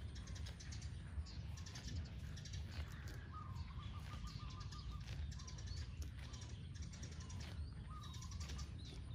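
A cow cropping grass: repeated crisp tearing and crunching pulls, about one every second. A bird chirps briefly about three seconds in, over a low steady rumble.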